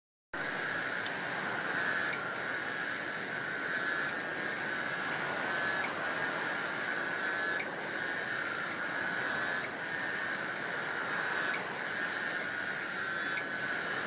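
Cicadas singing: a steady, high-pitched shrill drone, with a lower buzzing layer that swells and breaks off in repeated phrases about every two seconds.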